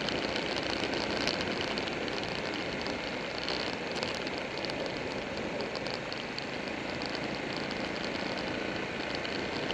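Buell 1125R motorcycle under way on the road: a steady rush of wind on the bike-mounted camera's microphone, mixed with road and engine noise.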